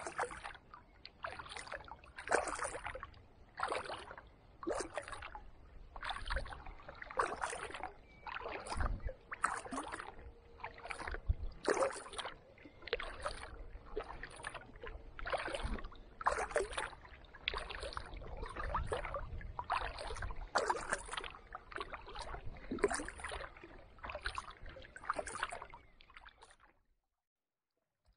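Kayak paddle strokes: the blades dip and splash in the water in a steady rhythm, a little more than one stroke a second. They stop suddenly about a second before the end.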